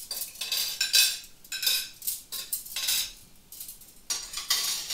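Crockery and cutlery clinking and scraping as they are handled on a kitchen table: a run of short, irregular clinks with brief pauses, some of them ringing slightly.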